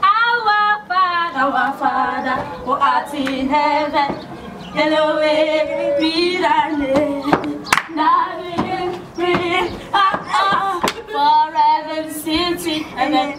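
A small group of girls singing together unaccompanied, in held, wavering notes, with a short break just after four seconds and a few sharp percussive hits in the second half.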